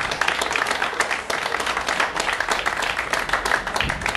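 Crowd applauding, many hands clapping densely.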